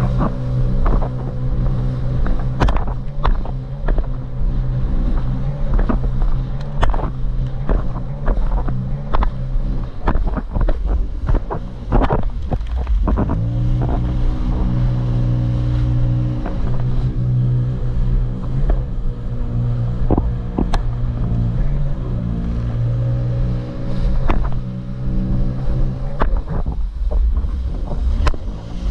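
Jet ski engine running steadily at speed, its note dipping a little after about twelve seconds and then picking back up. Wind buffets the microphone, with frequent sharp knocks throughout.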